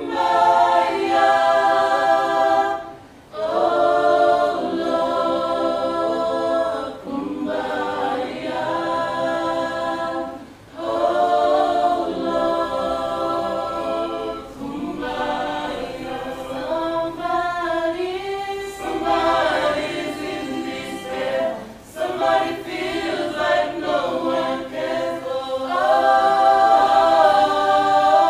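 A cappella choir singing in several-part harmony, in phrases a few seconds long with brief pauses between them.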